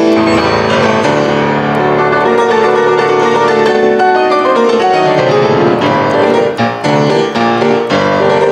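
Grand piano played solo in a fast, dense passage of many overlapping notes. From about five and a half seconds in, it breaks into shorter, separate chords.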